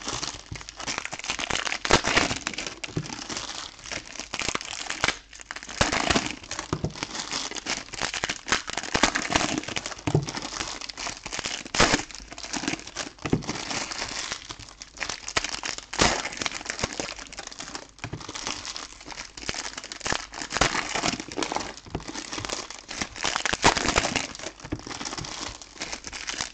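Foil wrappers of 2020 Select Soccer trading-card packs being handled and torn open: a continuous crinkling, broken by frequent sharp crackles.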